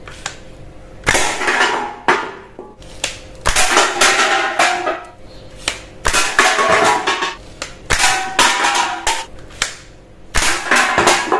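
Toy guns firing, a string of sharp shot sounds at irregular intervals, each trailing off over up to about a second.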